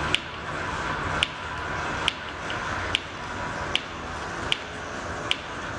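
Ratcheting hand winch raising a plywood ramp, one sharp click about every 0.8 seconds, over a steady hum of workshop noise.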